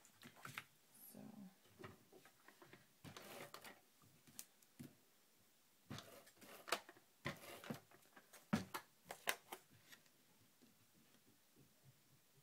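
Sheets of cardstock being handled and laid on top of each other: soft sliding and rustling of paper with scattered light taps and clicks, a cluster of sharper clicks in the middle, then only faint room tone near the end.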